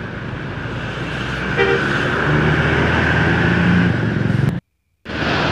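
An intercity coach bus pulling away close by, its engine growing louder, with a short horn toot about one and a half seconds in. The sound drops out for half a second near the end, then road traffic noise follows.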